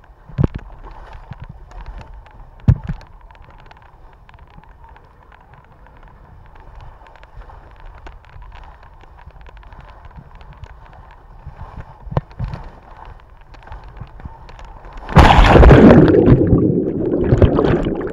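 Rider sliding feet first down a water slide: rushing water along the slide channel with a few sharp knocks. About fifteen seconds in comes a loud splash into the pool, followed by churning underwater bubbling.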